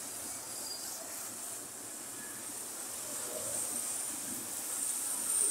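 Roadside traffic noise from motorcycles and cars, a steady wash of sound with a high hiss over it.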